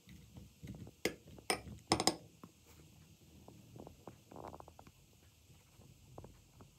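A spoon stirring boiled corn kernels and walnuts in a ceramic bowl: soft wet squelching, with a few sharp clinks of the spoon against the bowl between about one and two seconds in.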